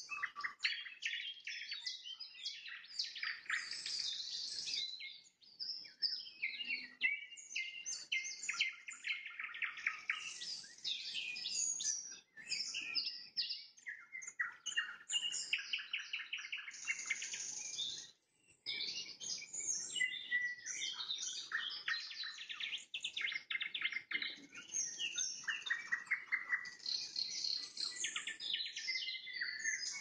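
Nightingale singing: rapid trills and runs of fast repeated notes, phrase after phrase with brief pauses between them.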